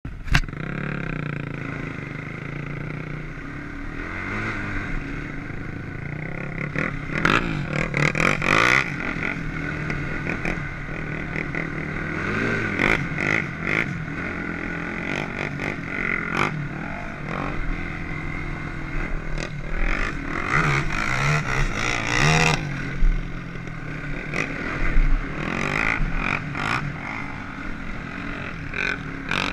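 Sport ATV engine running and revving up and down while riding over a dirt track, with frequent sharp knocks and buffeting on the microphone.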